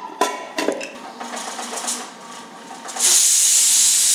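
A steel lid clinks and scrapes as it is set onto a steel tin inside the pressure cooker. About three seconds in, a loud steady hiss cuts in: steam blasting out from the pressure cooker's weight valve, one of the cooker's whistles, the sign it has built up pressure.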